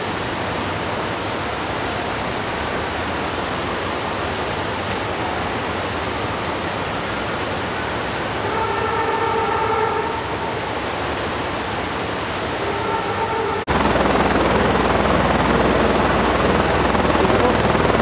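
Steady rushing of river rapids, with a steady pitched horn-like tone sounding twice about halfway through. After a sudden cut a little past the middle, a hovering helicopter's rotor and engine noise takes over, louder.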